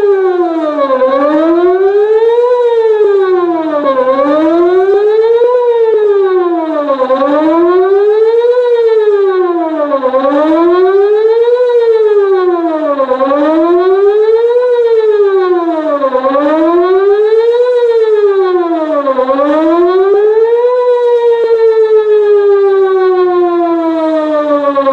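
Whelen WPS-2906 electronic outdoor warning siren sounding a wail, its pitch rising and falling about every three seconds. Near the end it holds a long falling tone as the signal winds down.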